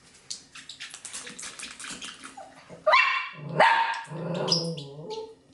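A dog whining, with two sharp yelps about three seconds in and a lower wavering whine after them; light clicking and tapping before.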